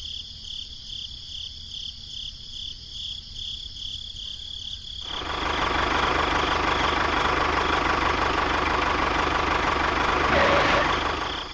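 Crickets chirping in a steady even pulse. About five seconds in, a tractor engine comes in and keeps running loud and steady over them.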